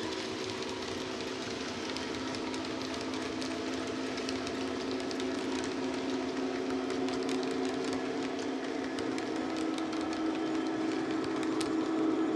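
Model container wagons rolling past, their wheels clicking on the track, over the steady drone of a Class 66 diesel engine played by the locomotive's DCC sound decoder. The sound grows a little louder near the end.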